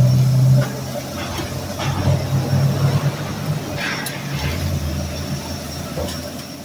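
Motor vehicle engine running close by, a low drone that shifts in pitch several times, loudest in the first half-second. A few light clicks and knocks sound over it.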